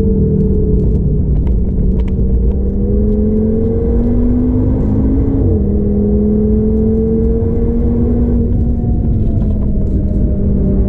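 Audi TT RS's turbocharged five-cylinder engine under way, heard from inside the cabin with a heavy low rumble. Its pitch dips, then climbs steadily, drops suddenly about five seconds in, and runs on nearly level.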